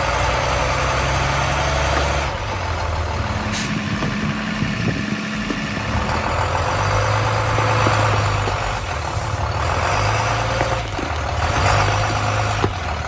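A bus's engine running under load while pulling on a tree, its pitch steady for stretches and shifting a few times.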